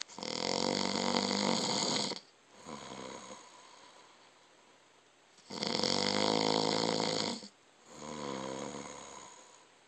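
A man snoring: two loud snores about five and a half seconds apart, each followed by a softer, shorter sound.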